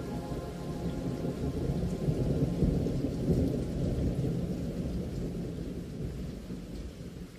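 A low rumbling rush of noise with no clear tone. It swells a couple of seconds in and fades away near the end.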